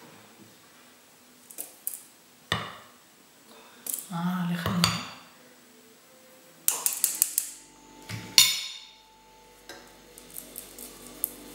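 A spoon scooping and clinking in a bowl of flour, then a metal sieve knocked and shaken over a mixing bowl to sift flour into cake batter: scattered clinks and sharp taps, with a quick run of taps about seven seconds in and a louder knock soon after.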